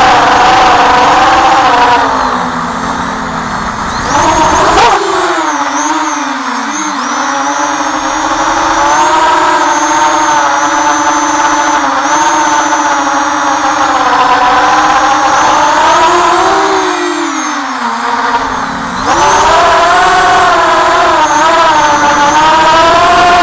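FPV quadcopter's electric motors whining, the pitch rising and falling with the throttle. The pitch drops sharply about five seconds in and again near the end, then climbs back up.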